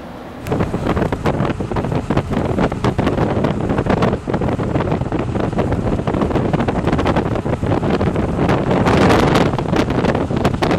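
Wind buffeting the camera microphone: a loud, ragged rushing rumble that jumps up about half a second in.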